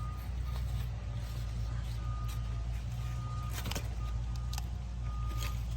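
A steady low engine rumble with a short high beep repeating about once a second, like a vehicle's reversing alarm, and a few sharp clicks.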